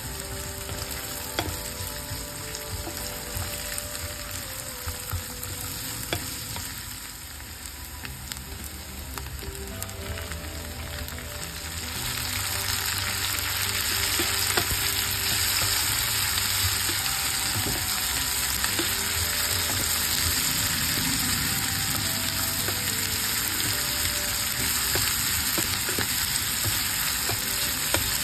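Sliced onions and chillies sizzling in hot oil in a nonstick pan, stirred with a wooden spatula that scrapes and taps the pan now and then. About twelve seconds in the sizzling grows louder, as tomato slices go into the pan.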